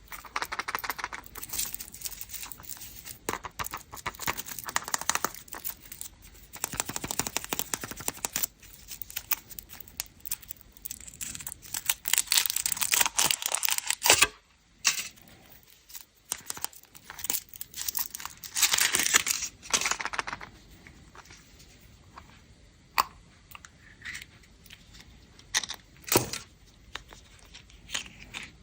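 Candy wrappers crinkled and torn open by hand, in irregular rustling stretches with sharp clicks and taps in between. The two longest, loudest bouts of rustling come about halfway through and again a few seconds later.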